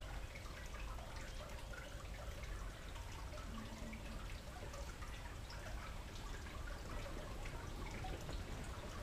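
Faint trickling water with many small drips ticking at random.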